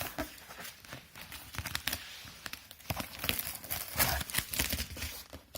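A parcel being cut open by hand, with irregular scraping, tearing and crinkling of its decorated wrapping and tape.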